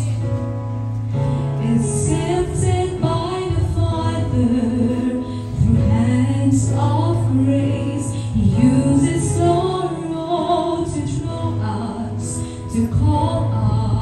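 A woman sings a gospel song solo into a handheld microphone, her melody gliding between notes, over instrumental accompaniment with long held bass notes.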